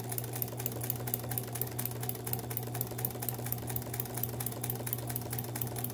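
Kenmore 158.1603 electric sewing machine running steadily, its motor humming under a fast, even clatter of needle strokes as it stitches a buttonhole.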